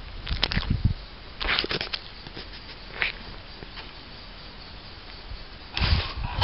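Red fox eating chicken right at the microphone: crunchy chewing and mouth clicks in several short bursts, with low thumps. The bursts are loudest near the start and the end.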